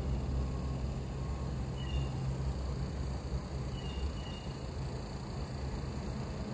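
Short, high-pitched animal chirps, one about every two seconds, over a steady low engine hum that fades out about four seconds in.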